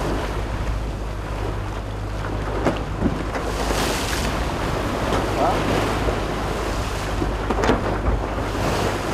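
Wind rumbling steadily on the microphone over the rush of choppy sea water around a boat under sail. There is a louder wash of water about four seconds in, and a few sharp slaps of waves.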